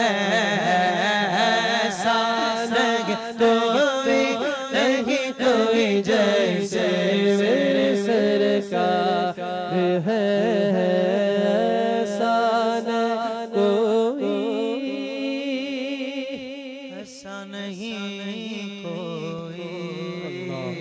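Naat recitation: a solo voice sings a long, wavering melismatic line over a steady drone, fading near the end.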